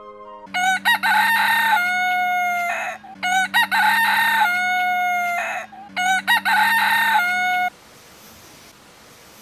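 Smartphone alarm ringtone playing a recorded rooster crow, three identical crows in a row, then stopping abruptly as the alarm is switched off.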